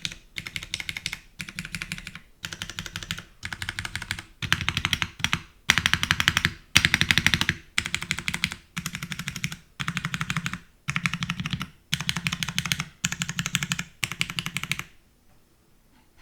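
Mechanical keyboard with tactile Cherry MX Brown switches on a polycarbonate plate, with GMK keycaps, typed on in rapid bursts of keystrokes, each about a second long with a short pause between. The bursts grow louder in the middle and stop about fifteen seconds in.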